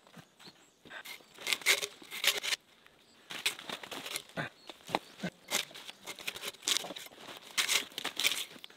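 Cut branches and brush being pulled off the logs and thrown aside: repeated bouts of leaves rustling and twigs crackling, with a few dull knocks of wood around the middle.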